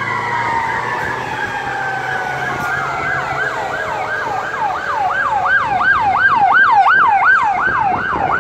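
Fire engine sirens responding: one long siren tone winds slowly down in pitch while an electronic yelp cycles about two and a half times a second, growing louder toward the end.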